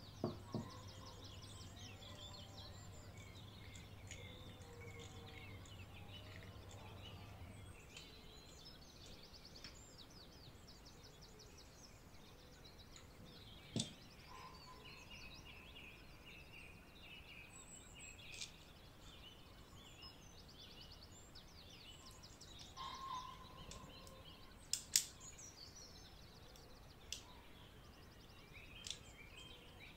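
Faint birds chirping and trilling in the background, with a few sharp clicks of small plastic toy-plane parts being handled, the loudest near the start, about halfway and about 25 seconds in.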